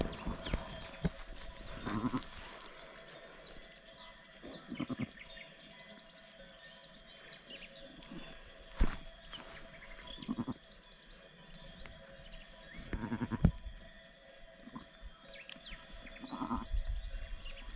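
Sheep bleating in about five short calls spaced a few seconds apart, during a lambing, with one sharp click about nine seconds in.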